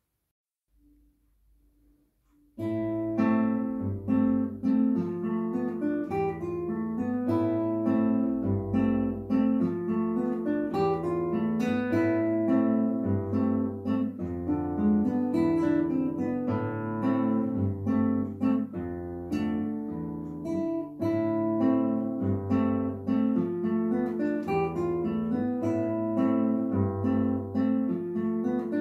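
Solo classical guitar, nylon strings plucked fingerstyle: after about two and a half seconds of near silence a new piece begins, bass notes under higher melody notes at a steady pulse.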